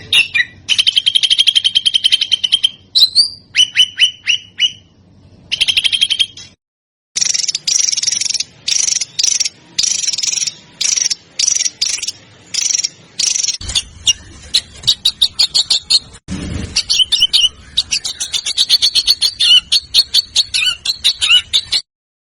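Small songbirds singing in rapid-fire bursts of sharp, closely repeated high notes and fast trills. These are several recordings spliced together, with a brief dead-silent gap about 7 seconds in where one clip ends and the next begins.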